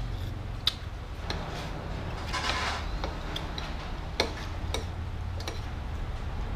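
Spoon and chopsticks clinking against a noodle bowl: a handful of sharp, separate clicks, over a low steady rumble.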